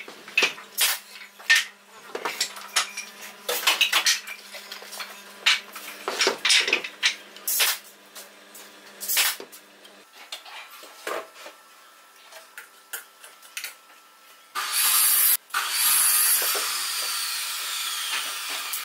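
Clinks and knocks of a small wooden table lamp with glass panels being handled while a bulb is fitted inside it. Later come scattered quieter taps, then a loud hiss that starts suddenly about three-quarters of the way through, breaks off once briefly, and fades slowly over about four seconds.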